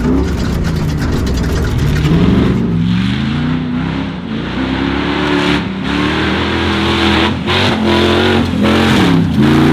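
Off-road race truck's engine revving hard, its pitch climbing and falling again several times over a steady rushing noise.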